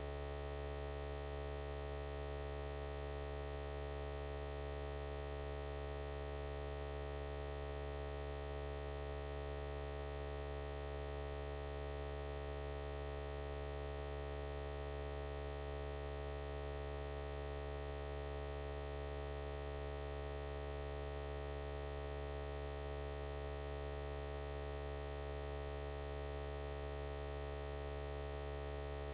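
A steady electrical hum made of several fixed tones, strongest in the deep bass, with no change in pitch or level.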